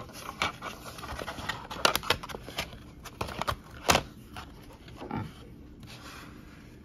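Cardboard shipping box handled and opened on a wooden table: cardboard scraping and rustling with scattered taps and knocks, the loudest knock about four seconds in, then quieter handling near the end.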